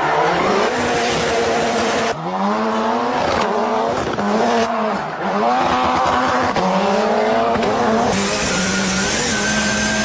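Rally car engine revving hard, its pitch rising and falling with throttle and gear changes, with tyre squeal as the car drifts. The sound changes abruptly a few times where clips are spliced together.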